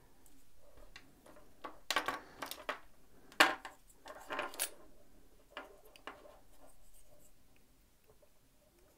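Small plastic Shimano Di2 parts and electric wire being handled on a tabletop: scattered clicks, taps and short rubbing scrapes, clustered in the middle, with one sharp click about three and a half seconds in.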